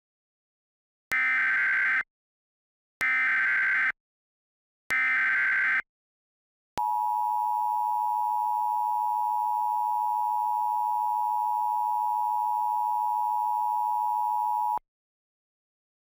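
Emergency Alert System SAME header bursts, three times about a second apart, each a rapid buzzing digital screech, encoding an Administrative Message alert. They are followed by the EAS two-tone attention signal, a steady dual tone held for about eight seconds and then cut off.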